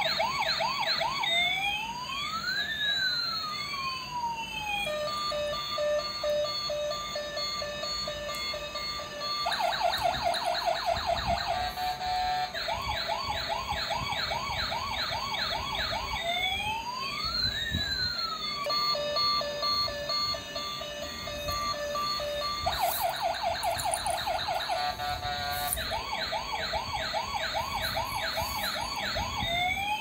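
Toy police car's electronic siren sound effect, cycling through a fast yelping sweep, a slow rising and falling wail, and a pulsing two-tone pattern, repeating about every fourteen seconds.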